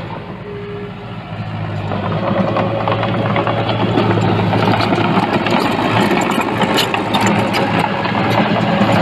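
Heavy-equipment diesel engine running with a steady low drone, growing louder over the first few seconds. From about four seconds in, a dense rattle of clicks and knocks sounds over it.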